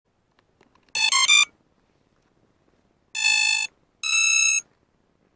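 FPV racing drone's electronic speed controllers beeping their start-up tune through the motors at power-up: three quick rising notes about a second in, then a lower long beep and a higher long beep.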